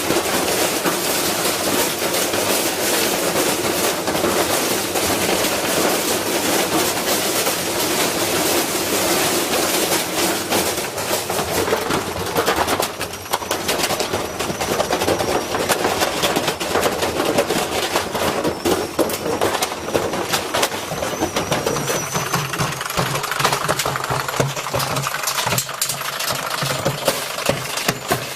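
Washing machine spinning with a brick inside its drum, banging and rattling violently in a rapid, continuous clatter of knocks. About 22 seconds in, a steady motor hum comes up under the banging.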